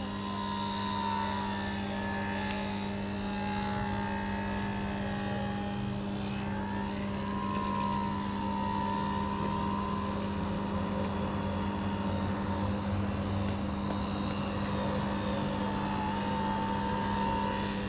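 Radio-controlled model airplane flying circuits overhead: the steady buzz of its motor and propeller, its pitch sliding down and back up as the plane passes back and forth.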